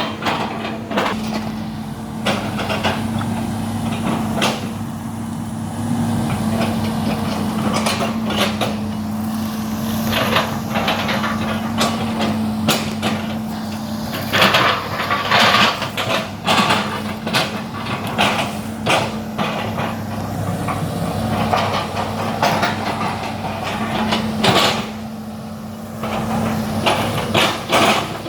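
Excavator engine running with a steady hum, overlaid by runs of quick knocks and cracks as the bucket chops up oil palm trunks. The knocking is thickest about halfway through and again near the end.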